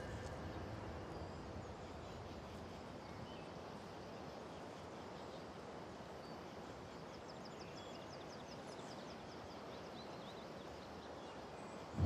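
Faint forest ambience: a soft steady hiss with scattered bird chirps, and a quick run of repeated high bird notes about seven seconds in.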